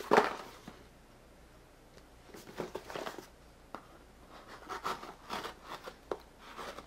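Small cardboard product box being handled and opened by hand: a knock right at the start, then scattered scraping, rustling and small clicks as the end flap is pried open.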